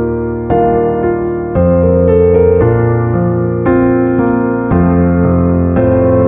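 Background piano music: slow, sustained chords, a new chord struck about once a second.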